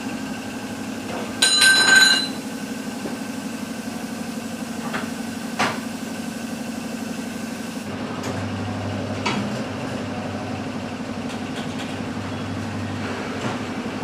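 Tyre-changing machine running with a steady motor hum while a motorcycle tyre is levered off its rim; a second, lower hum joins from about eight to thirteen seconds in. A loud metallic clank of the tools rings out about a second and a half in, with a few lighter knocks later.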